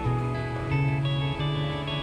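Background music led by a plucked guitar, with notes changing about every half second over a steady bass.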